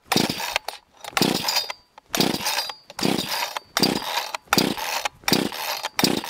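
Recoil pull-starter of a cheap off-brand two-stroke gas chainsaw, pulled about eight times in quick succession, roughly one pull a second. The engine turns over on each pull but doesn't catch: a cold start with the choke out, and no throttle lock holding the throttle open.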